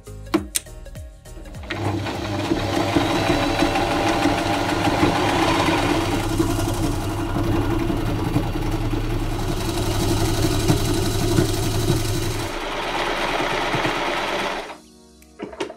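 Electric sewing machine running steadily, its needle stitching a braid trim onto quilted velvet in rapid, even strokes. It starts up about two seconds in after a few clicks and stops near the end.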